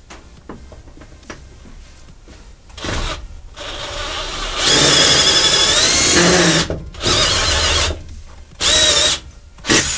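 Black & Decker cordless impact driver run in several trigger bursts, the longest about two seconds in the middle with a whine that wavers under load, loosening the hub's bolt.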